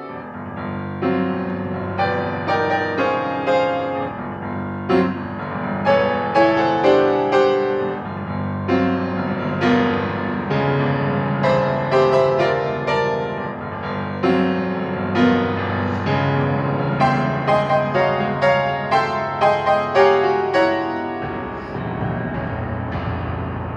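Solo piano playing a bell-imitating piece: struck chords and repeated notes ringing over held bass notes. Near the end a held chord dies away.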